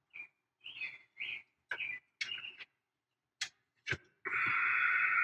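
Adhesive tape being pulled and peeled in a series of short squeaky tugs, two sharp clicks, then one longer steady pull.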